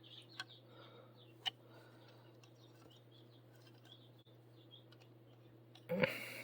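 A few faint small clicks as the plastic and metal parts of a Martelli rotary cutter are handled during reassembly, with a short rustle near the end. Under them run a low steady hum and faint high bird chirps.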